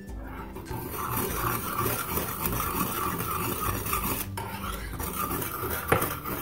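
Metal whisk stirring a thin milk, cocoa and cream mixture in a non-stick saucepan, scraping steadily against the pan. There is a brief pause about four seconds in and a light knock near the end.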